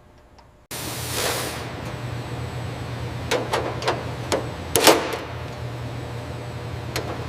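Workshop sounds during frame-straightening work on a car body: a steady low hum that starts suddenly just under a second in, with a handful of sharp knocks and clicks, the loudest a double knock about five seconds in.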